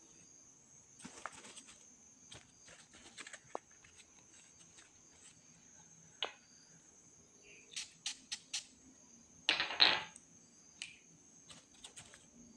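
Scattered small clicks and taps of handling, with a quick run of four sharp clicks about eight seconds in and a louder brief rustle about ten seconds in, over a steady high insect chirring.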